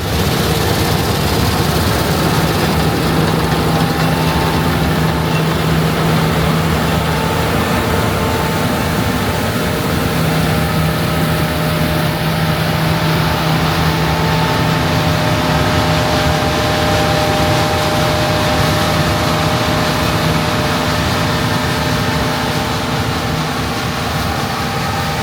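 Heavy farm machinery's diesel engine running steadily: a constant hum with a few held tones over it.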